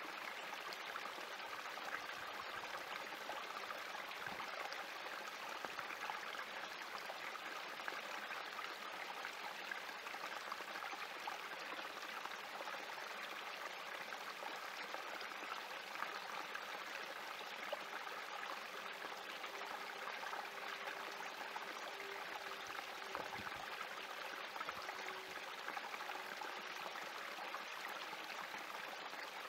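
Small spring creek running and trickling over rocks, a steady, even water sound.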